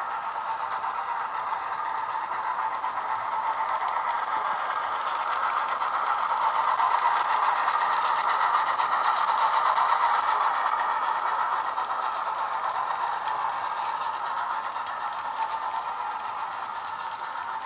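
Hornby A3 'Flying Scotsman' model locomotive's onboard sound unit playing steam-engine running sounds, a hissing, chuffing noise through its small speaker. It grows louder to a peak near the middle and then fades.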